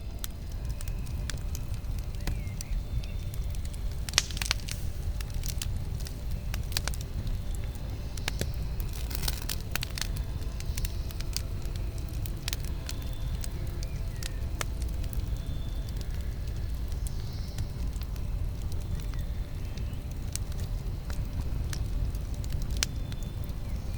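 Campfire burning, with a steady low rumble under irregular sharp crackles and pops that bunch together about four seconds in and again near the middle.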